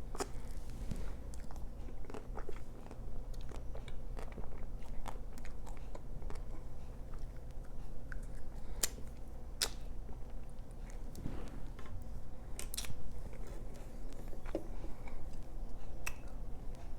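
Close-up mouth sounds of eating a Magnum chocolate-coated ice cream bar: biting and chewing, with the chocolate shell cracking in scattered sharp crunches over a low steady hum.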